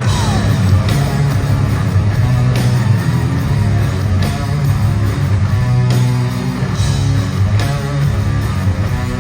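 Live hard rock band playing loudly, with heavy distorted electric guitar, bass and drums.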